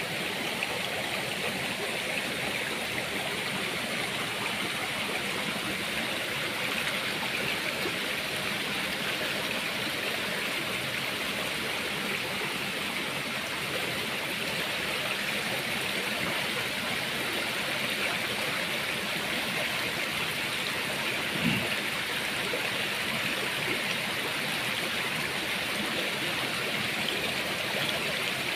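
Shallow stream running over rocks: a steady rush of water. A single brief thump about three-quarters of the way through.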